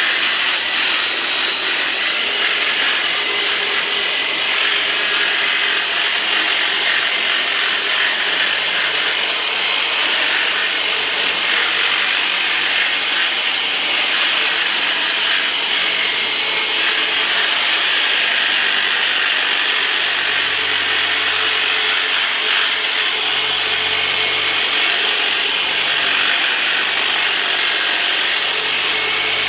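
Electric massage tool (the 'turbonator') running steadily, a continuous high motor whir with no breaks.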